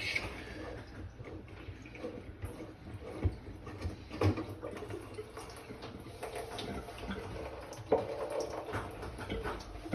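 Water left in an opened water supply line trickling and dripping into a mud pan, with irregular small splashes and a few sharper knocks.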